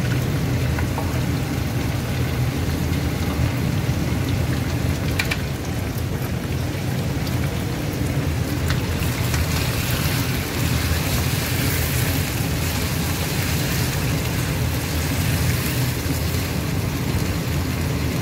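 Hot cooking oil sizzling steadily in a wok with chicken pieces frying in it. The sizzle gets brighter about halfway through, over a steady low hum.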